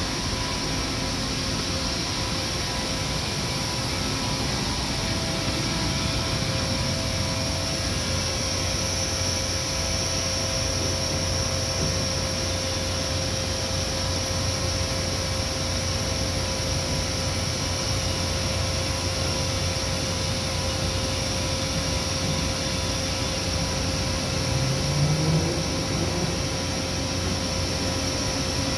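1998 Giddings & Lewis 72-inch CNC vertical boring mill running: a steady machine hum with a few steady whining tones. Near the end a short rising tone and a small swell in level come as its rotary table spins up.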